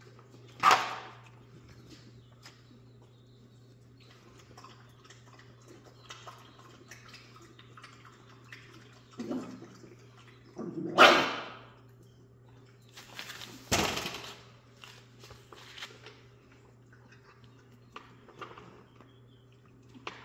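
Young Jack Russell terrier puppies moving about on towels in their bed, with faint rustling and a few sudden loud noises from the litter. The loudest comes about eleven seconds in, the others near the start, around nine seconds and around fourteen seconds. A steady low hum runs underneath.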